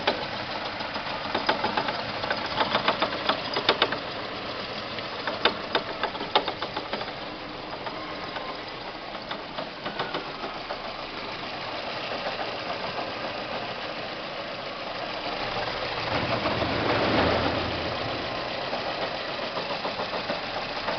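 Renault Clio running with a fast, irregular knocking and clicking over the first several seconds, then a steadier run that swells briefly about three quarters of the way through. The owner puts the noise down to the tripod joint (trizeta) in the driveshaft's tulip, since the CV joints are new; the mechanic says the fault is in the engine.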